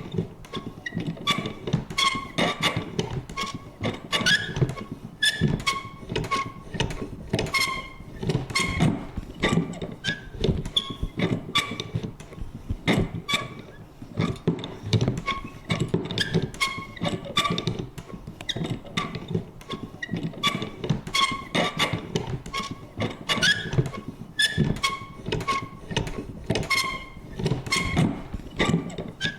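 Vintage paper punch worked over and over: an irregular run of clicks and thunks, about two or three a second, many with a short squeaky creak.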